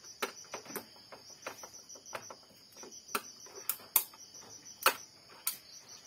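Irregular light clicks and taps of a screwdriver working a screw out of an Epson L3110 inkjet printer's metal frame, about a dozen of them, the sharpest about three to five seconds in.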